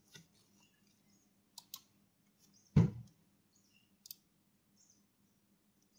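A few computer mouse clicks over quiet room tone: a faint quick pair about a second and a half in, one much louder click near the middle, and another faint click about four seconds in.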